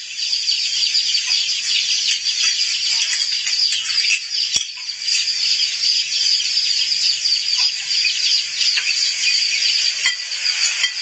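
Steady shrill high-pitched drone in the background, with a sharp click about four and a half seconds in and another near the end as a metal spoon knocks a ceramic bowl.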